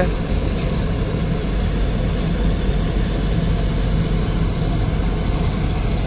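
Balkar combine harvester's engine and threshing machinery running steadily under load, a continuous low drone.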